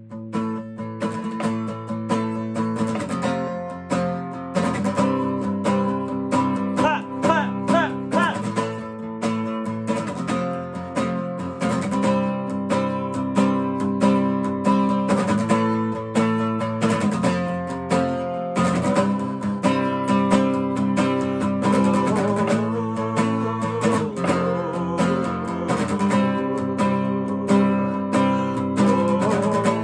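Steel-string acoustic guitar strummed in a steady rhythm of chords, with a man's voice singing over it in places.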